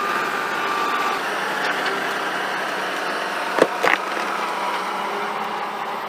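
Compact tractor engine running steadily while its front loader works, with a thin whine in the first second. Two sharp cracks come close together about halfway through.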